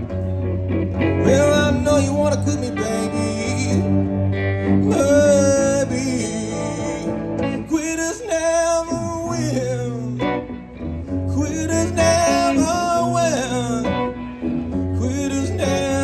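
Live blues played by two electric guitars, with a low repeating bass line under a harmonica playing phrases with bent notes, each a couple of seconds long with short pauses between.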